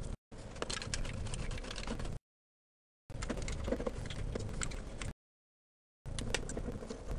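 Small clicks, taps and rubbing as aluminium foil tape on a model aircraft fuselage is worked down by hand with a thin tool. The sound cuts out to dead silence twice, for about a second each time.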